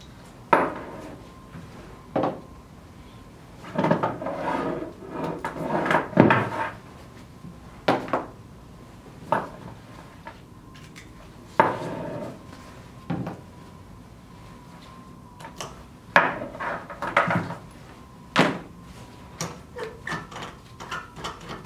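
Air hoses, metal couplings and a gauged regulator from a hose inflation kit being handled on a wooden table: irregular clicks, clacks and knocks, with brief rattling clusters as fittings are worked.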